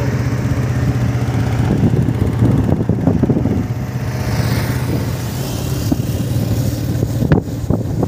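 Motorcycle engine running steadily while riding, with road noise, and a single sharp click near the end.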